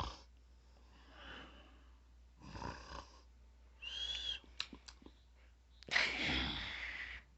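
A sleeping man snoring: a run of wheezy snores, one with a whistling note about four seconds in, and a longer, louder one near the end.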